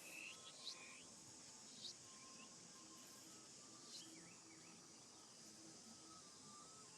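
Faint, steady, high-pitched drone of insects, with a few short rising chirps in the first four seconds.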